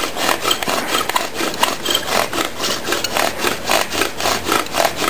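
Bow drill working: a binunga-wood spindle grinding in a binunga hearth board as the bow is sawn back and forth, a rhythmic rubbing at about three strokes a second, pressed down hard to heat the wood for an ember.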